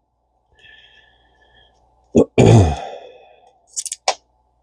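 A congested man's faint whistling breath, then a loud heavy sigh that trails off, followed near the end by a few small sharp clicks of reel parts being handled.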